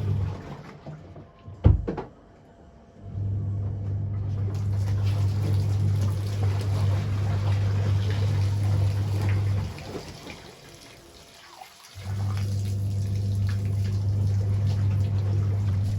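A steady electric motor hum that cuts out near the start, runs again from about three seconds in, stops near ten seconds and starts once more about twelve seconds in, with water sounds throughout. A sharp knock comes about two seconds in.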